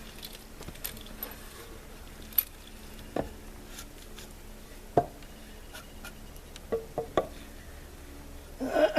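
Scattered light knocks and clinks, about a dozen spread irregularly, as landscaping timbers and tools are handled and set down. Near the end a louder throaty vocal sound, like a grunt or throat clearing, begins.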